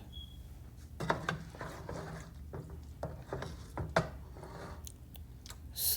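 Raw chicken drumsticks being handled and laid into a glass baking tray on potatoes and vegetables: irregular light knocks, clicks and rubbing, over a low steady hum.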